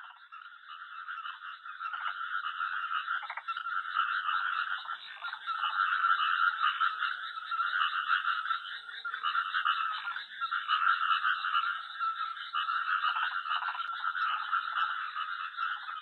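A dense chorus of many Japanese tree frogs calling at once, rapid overlapping croaks with no pauses. It fades in over the first few seconds, then holds steady.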